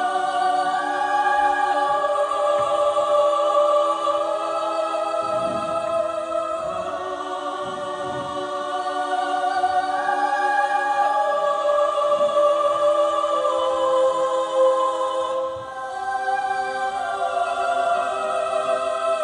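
Choral music: many voices holding long, slow chords that change every few seconds.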